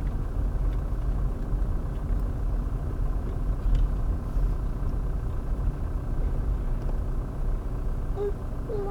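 Steady low rumble of a car's engine and tyres heard from inside the cabin while driving slowly. A short voice sounds near the end.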